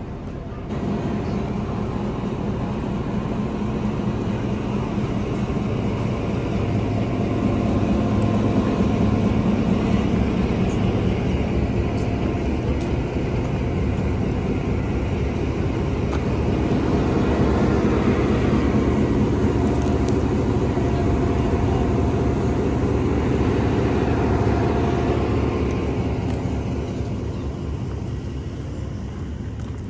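An engine running steadily with a low hum, under footsteps crunching on gravel. It starts about a second in and eases off near the end.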